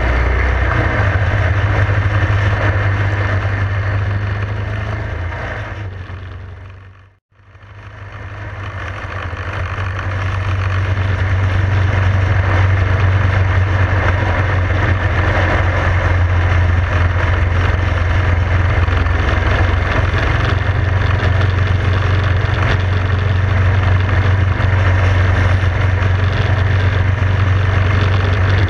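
Motorcycle riding at highway speed: a steady low engine drone under wind rush, heard from a camera mounted on the bike. About seven seconds in the sound fades to silence and back up again.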